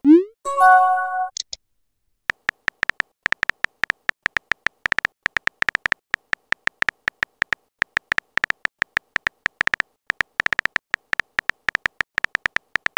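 Texting app sound effects: a quick rising swoosh and a short chime of several tones as a message is sent, then, about two seconds in, rapid irregular keyboard taps of a message being typed out.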